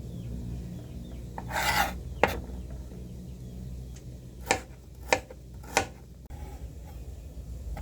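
Hand rubbing or scraping: one longer rasping rub, then three short sharp scrapes a little over half a second apart, over a steady low hum.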